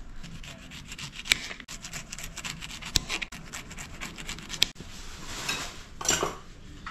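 Rapid scraping and rubbing strokes against a hard surface, with sharp knocks about a second in, near the middle and a little past halfway, and a longer scrape near the end.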